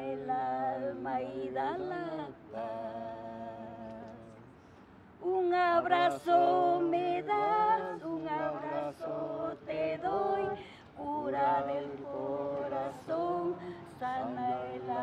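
Woman singing a slow song unaccompanied, with long held notes. Her voice fades away on a held note a few seconds in, then comes back louder about five seconds in.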